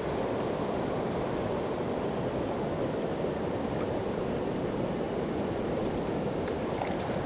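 Fast river water rushing steadily past, the current strong with snowmelt.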